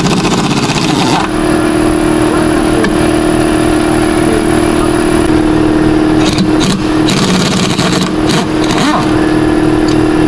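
Cordless impact wrench run in short rattling bursts on the bolts of a roller-coaster car's frame: one burst at the start, several more about six to nine seconds in. A steady mechanical hum runs underneath.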